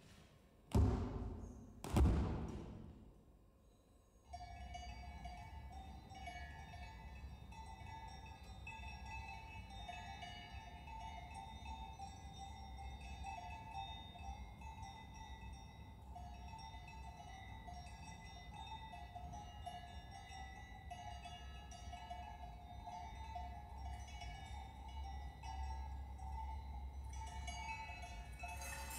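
Dance-performance score: two deep booming hits with a long ring-out, then a sustained metallic ringing drone, like many bells, over a steady low rumble.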